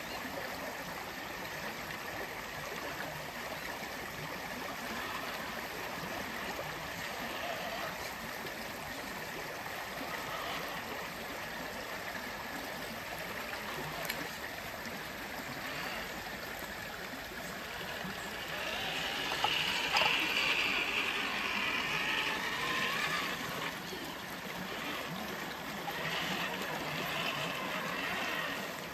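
Creek water running and trickling over rocks, swelling louder for a few seconds past the middle.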